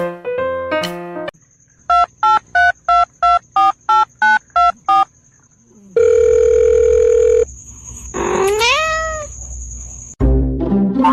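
About ten short, evenly spaced electronic beeps, roughly three a second, then a loud steady tone for about a second and a half and a short call that rises and falls in pitch. Piano music plays briefly at the start and again near the end.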